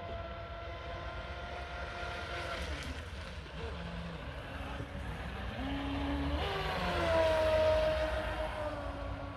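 Radio-controlled speedboat's motor whining steadily as it runs across the pond, growing louder around seven seconds in, with its pitch falling.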